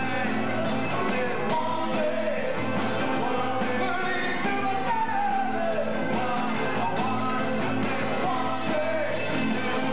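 Live rock band playing a song, with a singer's voice gliding over guitar and a steady beat.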